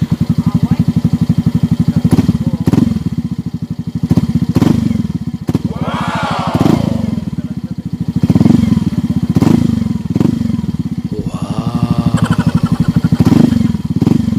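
Yamaha Mio Soul i 125 scooter's single-cylinder engine running through a freshly fitted NB Racing 'chicken pipe' aftermarket exhaust: a rapid, even low putter with short throttle blips every second or so.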